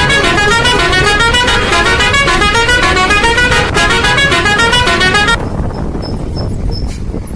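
Truck's musical horn playing a fast tune of quick stepping notes, which stops about five seconds in; a low rumble carries on after it.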